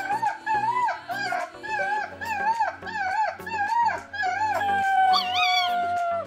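Puppy whining and howling in short high rising-and-falling cries, two or three a second, then one long drawn-out whine that slowly falls and stops abruptly near the end. It is begging for food held out of its reach.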